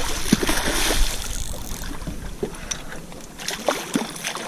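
Wind rumbling on the microphone over sloshing shallow water, with a few small splashes and clicks. The wind noise eases about two seconds in.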